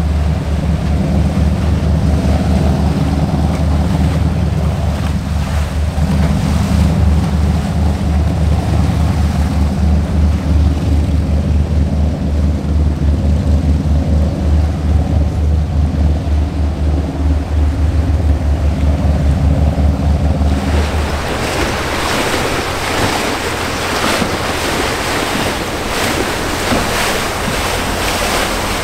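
Formula 382 powerboat's inboard engines running with a deep, pulsing rumble over churning water. About twenty seconds in the engine sound stops abruptly, leaving the rush of turbulent water and wind noise.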